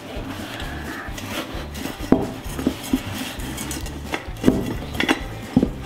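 Old inner tube being pulled out of a wheelbarrow tire by hand: rubber rubbing and scraping against the tire and its metal rim. Several sharp knocks and clatters come as the wheel shifts about on the workbench.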